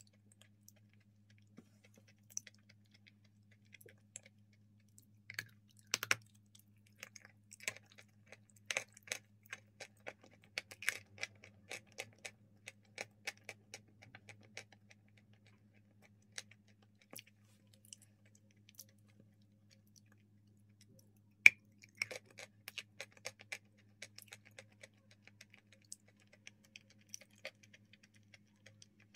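Close-up chewing and crunching of a crumbly white block coated in grey paste: irregular crisp crackles and clicks, busiest in two stretches, with one sharper snap a little past two-thirds of the way through. A faint steady electrical hum underneath.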